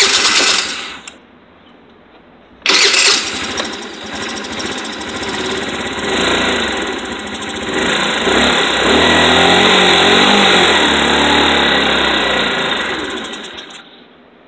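Chinese scooter engine cranked in a short burst, then cranked again and started about three seconds in. It runs with the pitch rising and falling as the throttle is worked, then stops shortly before the end. It is being run to test fuel delivery through the vacuum fuel pump with a sealed, non-venting gas cap.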